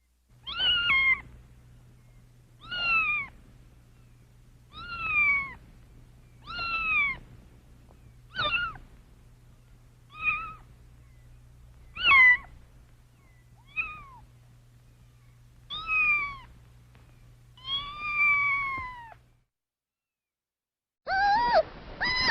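A cat meowing about ten times, one drawn-out, high meow every couple of seconds, each rising and then falling in pitch. The meows stop a few seconds before the end, and after a short silence a different animal call begins.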